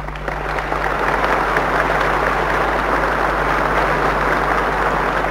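A large audience in a hall applauding, swelling over the first second and starting to thin near the end, over a steady low hum in the old broadcast recording.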